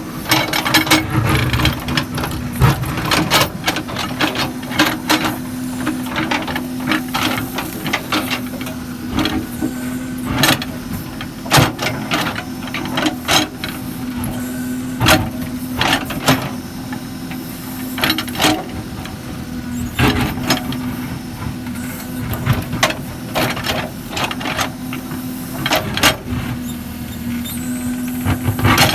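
Case 770 backhoe loader's diesel engine running with a steady hum, broken by frequent irregular sharp knocks and clanks.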